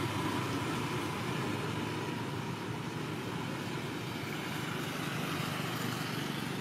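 Steady outdoor background noise with no distinct events, an even rushing hum with a faint steady whine running through it.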